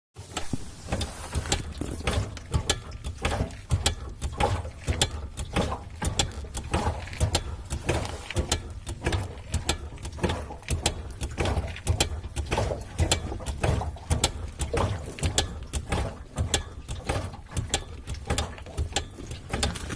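BMW E30 rear end making irregular clicking and knocking noises, a few a second, over a steady low rumble. The owner suspects worn output shafts, driveshaft centre support bearing, rubber mounts or differential mounts, or the differential itself.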